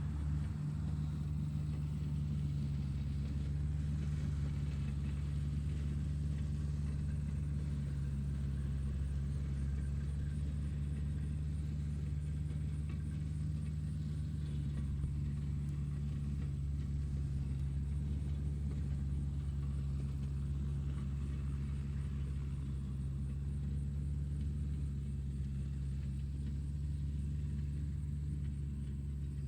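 Tractor engine running steadily, a low, even rumble with no change in speed.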